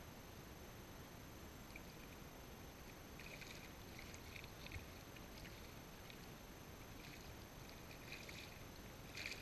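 Faint small splashes and lapping of shallow river water, in scattered clusters that come most often in the second half and are strongest near the end, as a carp moves in the shallows among the rocks.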